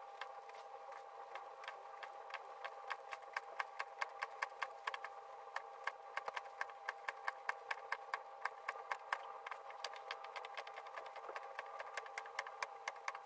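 Gear teeth being shaped on a lathe with a homemade single-point cutter, heard sped up eight times: the cutter's strokes come as an even run of sharp clicks, about four or five a second, over a steady hum.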